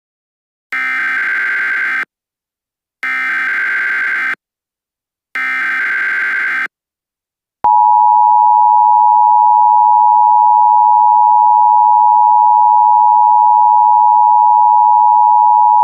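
Emergency Alert System alert tones: three bursts of SAME header data, each a little over a second long with about a second between them, then the steady two-tone EAS attention signal, which comes in about a second after the last burst and holds.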